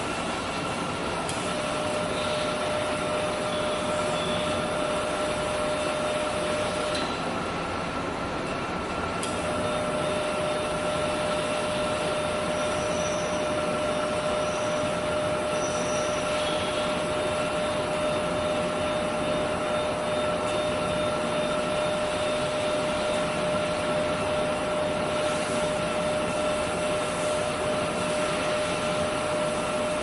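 Small DC motor of a mechatronics trainer running with a steady whine as it drives the storage platform along its rail, under a steady background hiss. The motor stops about seven seconds in, as its pushbutton is released, and starts again about two seconds later.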